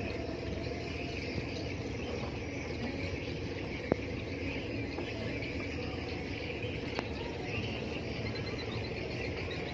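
A trawler's 750-horsepower diesel engine running steadily while it drives the winch hoisting the trawl net up the gantry, with a steady high whine over the engine's hum. A single sharp click about four seconds in.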